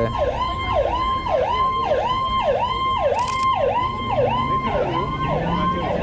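An electronic siren sounding in quick, repeated falling sweeps, about two a second. A lower hum swells and fades under it in the second half.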